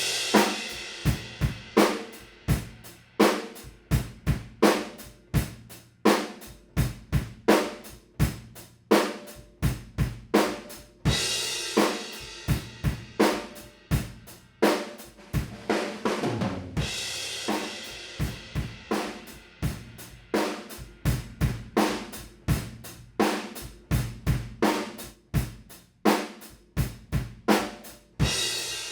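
Drum kit playing a steady groove of kick, snare and hi-hat, with cymbal crashes ringing out about 11 and 17 seconds in.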